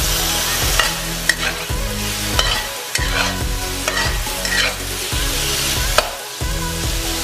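Sliced meat and mushrooms sizzling in a hot stainless-steel wok. A metal spatula scrapes and tosses them in short strokes, about one every second.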